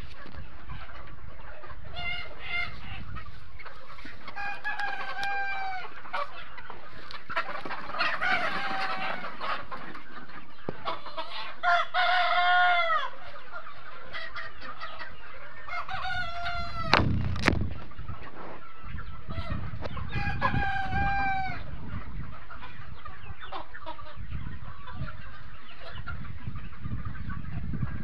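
A large flock of mixed Sonali chickens clucking steadily, with roosters crowing about six times, each crow lasting about a second. A sharp knock sounds about two-thirds of the way through.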